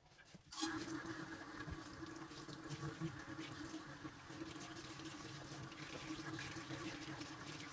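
Kitchen tap turned on about half a second in, then water running steadily from the faucet onto raw chicken pieces being rinsed by hand in a stainless steel sink, with a steady low tone under the rush of the water.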